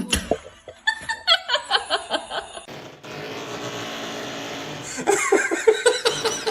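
People laughing in quick, rhythmic bursts, broken by a steady noisy stretch of a couple of seconds in the middle.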